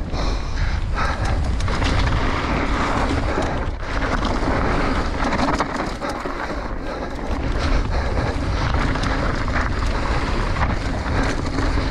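Enduro mountain bike descending a dirt and gravel trail at speed: steady wind rush buffeting the camera microphone, with tyre noise over the dirt and rapid small knocks and rattles from the bike over bumps.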